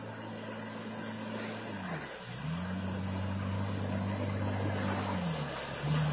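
Jet ski engine running on open water, getting louder as it comes closer. Its pitch dips and picks up again about two seconds in, and drops lower a little after five seconds as the throttle eases for a turn.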